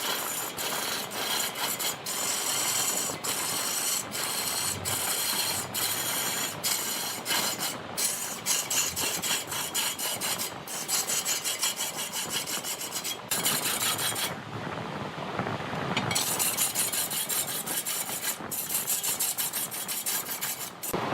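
Turning tool cutting into a spinning redwood log on a large wood lathe: a rough, rasping scrape that stops for short moments several times, with the longest break a little past the middle.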